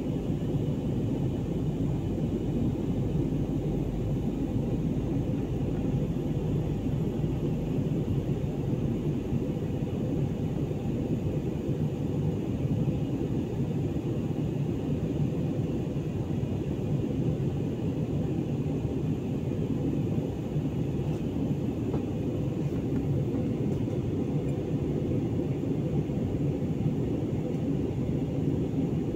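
Steady low rumble of a jet airliner in flight, heard inside the passenger cabin: engine and airflow noise, even throughout with no change.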